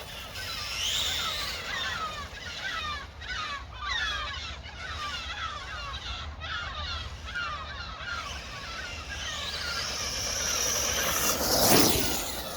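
High-pitched whine of an RC crawler's 3600 kV brushless motor rising and falling as it is driven hard along the road, swelling loudest as the truck passes close near the end.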